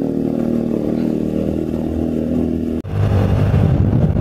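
Vehicle engine running steadily while driving on a mountain road. About three-quarters of the way through the sound cuts off abruptly and resumes as a louder, rougher rumble.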